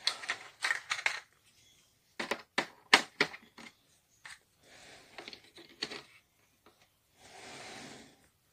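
Handling noise around a plastic toy: irregular sharp clicks and knocks, loudest about three seconds in, then a soft rustle near the end.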